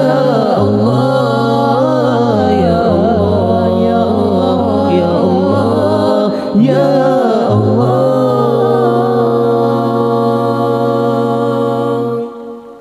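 Four-man a cappella group singing an Arabic shalawat: a wavering, drawn-out lead line over backing harmonies and a held low bass voice. The singing stops about twelve seconds in.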